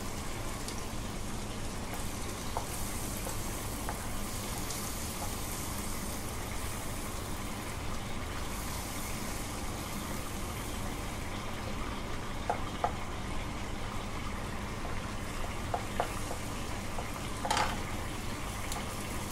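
Butter sizzling steadily as it melts and foams in a hot frying pan, stirred with a wooden spatula. A few light knocks of the spatula against the pan come in the second half.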